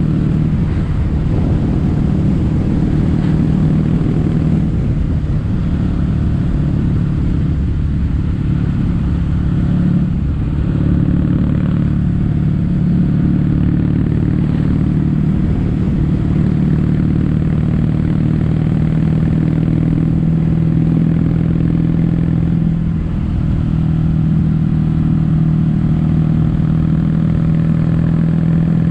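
Kawasaki W800 parallel-twin engine running through Yamato stainless-steel Cabton-style silencers while the bike is ridden, a steady low exhaust note with brief dips in level about 10 and 23 seconds in.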